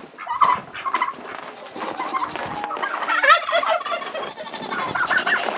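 Farmyard poultry calling: a few rapid, warbling, gobble-like calls, the loudest burst about three seconds in.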